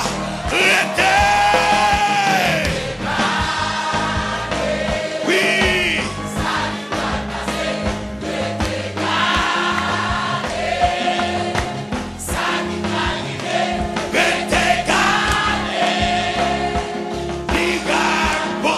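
Gospel worship song: a choir singing with instrumental backing.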